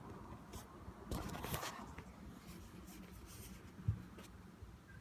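Faint handling noises: a brief scratchy rustle about a second in, a few light clicks, and a soft knock near the end, as the phone and its packaging are handled.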